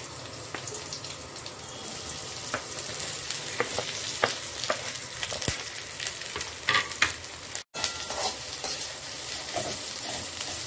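Sliced onions sizzling steadily in hot oil in a kadhai, with scattered clicks and scrapes as a perforated metal slotted spoon stirs them against the pan. The sound cuts out for a split second about three-quarters of the way through.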